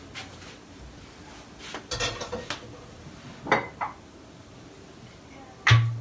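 Kitchen pots, pans and utensils clattering as they are handled: a few clinks about two seconds in, two sharp knocks around three and a half seconds, and a louder knock with a low thud near the end.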